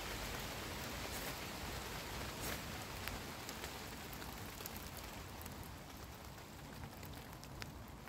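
Steady hiss of light rain, with a few short sharp scrapes scattered through it: a ferro rod struck with a Swiss Army knife to throw sparks onto birch bark tinder.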